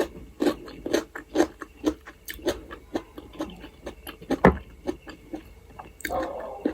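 Close-miked chewing of a potato-filled momo dumpling: a run of soft, wet mouth clicks and smacks, about two to three a second.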